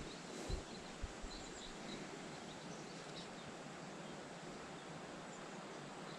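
Quiet outdoor ambience: a steady faint hiss with a few faint, distant bird chirps, and two soft knocks about half a second and a second in.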